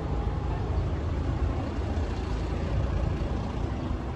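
Scania P410 tipper truck's diesel engine idling, a steady low rumble.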